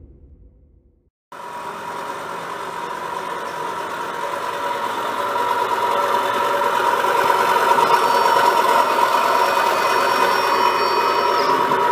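Current CT300 CNC EDM drill running: a steady machine hum with a strong even tone over hiss. It starts suddenly about a second in and slowly grows louder, with faint high-pitched tones joining near the end.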